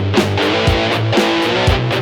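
Electric guitar played through a Zoom G1XN multi-effects pedal: held, distorted-sounding notes and chords that change about a second in, over a drum rhythm with a hit about twice a second.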